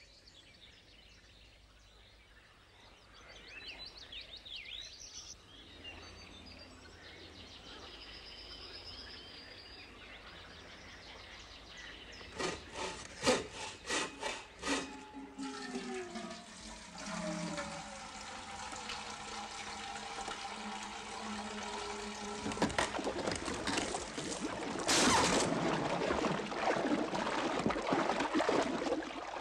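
Cartoon sound effects: faint high chirps at first, then a quick run of wooden knocks and a creak as a wooden sluice gate is worked. Water then rushes through the open gate, growing louder, with a loud splash near the end.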